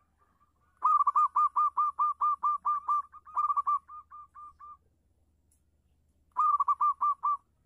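Zebra dove calling: a fast run of short cooing notes, about five a second, that grows softer in its later notes. A shorter run of about six notes follows near the end.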